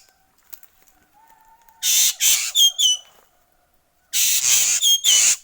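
Ekek keling giving harsh, raspy screeching calls in two bouts of several calls each, about two seconds in and again near the end.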